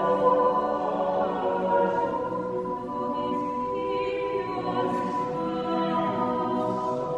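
Chapel choir singing slow, sustained chords, several voices holding long notes together.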